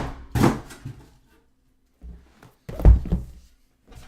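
Dull thunks of hard objects knocking: a sharp knock at the start, a second about half a second later, and a heavier low thump about three seconds in.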